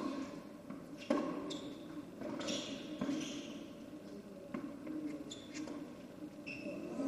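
Tennis rally: racquets strike the ball every second or two, with short high squeaks of shoes on the court between shots. The sound echoes in a large indoor hall.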